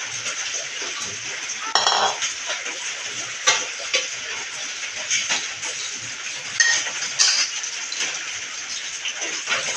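Tap water running steadily into a stainless steel sink while dishes are rinsed, with ceramic bowls and plates clinking against each other and the sink several times.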